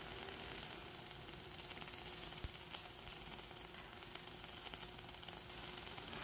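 Flux-cored arc welding on carbon steel plate: the arc crackles and sizzles steadily as the torch runs a bead.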